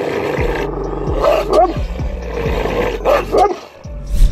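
Large black mastiff-type dog on a leash barking in deep, single barks a few times, the loudest near the end.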